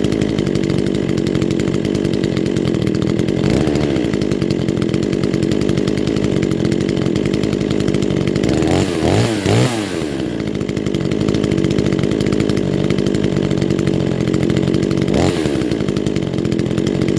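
Neotec NH841 two-stroke chainsaw, freshly ported, idling on its first run with the carburettor not yet tuned. The throttle is blipped briefly a few times, most strongly about nine seconds in, the pitch rising and falling back to idle.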